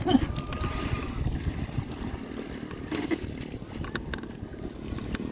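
Wind rumbling on the microphone over water around a small boat, with a few light knocks and splashes near the start and again about three to five seconds in.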